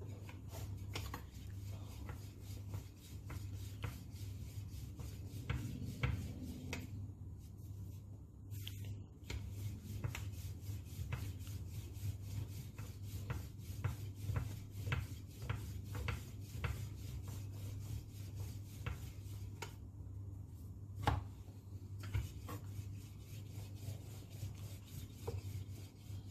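Wooden rolling pin rolling out pastry dough on a granite countertop: soft rubbing with many small knocks and clicks of the pin against the stone, over a steady low hum.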